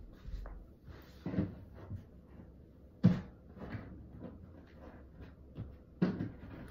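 Climber's hands and stockinged feet knocking against a plywood bouldering wall and its resin holds: a handful of dull thuds, the loudest about three seconds in.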